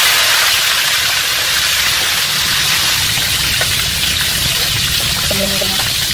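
Whole red snapper deep-frying in hot oil in a wok: loud, steady sizzling and bubbling that eases off slightly, as the oil boils hard around the freshly added fish.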